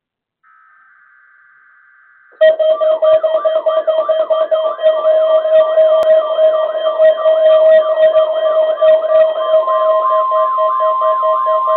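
Weather radio emergency alert test signal: faint short bursts of coded data tones, then a loud alarm starts suddenly about two and a half seconds in. The alarm is a warbling siren that swoops about three times a second over steady tones, and another steady alarm tone joins near the end.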